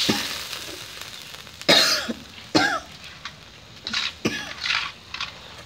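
A person coughing: two loud coughs about a second apart, then several weaker ones.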